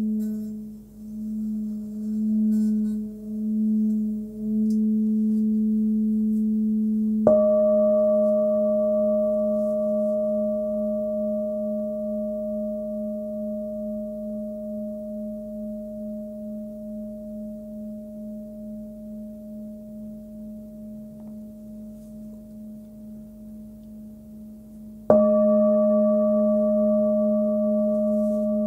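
Nepalese singing bowl, 18.5 cm, pitched around 213 Hz (G#–A), first sung by a mallet run round its rim so its hum swells and ebbs, then struck twice, about seven seconds in and again near the end. Each strike rings out long and fades slowly with a steady wobble.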